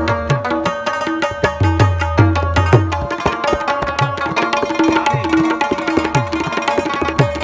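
Rubab and tabla playing together: quick plucked rubab notes ringing over a fast run of tabla strokes, with the deep bass-drum strokes sliding down in pitch.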